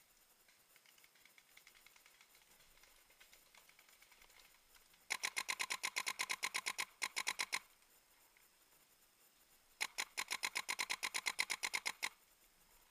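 Paintball marker fired in two rapid bursts of about ten shots a second, each lasting roughly two seconds. The first starts about five seconds in and the second about ten seconds in. Fainter scattered pops come before them.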